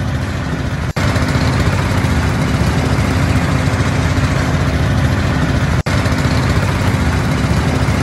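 A wooden river boat's engine running steadily as the boat pulls in to the bank to moor. The sound breaks off for an instant twice.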